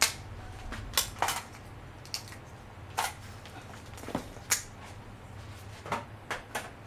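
About ten sharp clicks and light knocks at irregular intervals from small parts and tools being handled while the subwoofer and its 12 V amplifier are being wired up. A low steady hum runs underneath.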